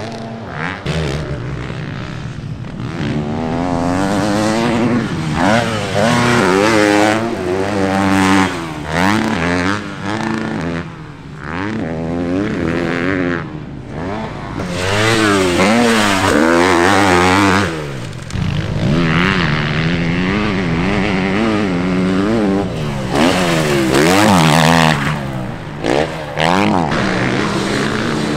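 Motocross bike engines revving hard and dropping off again and again as riders hit jumps and corners. The pitch climbs and falls many times, with short lulls between.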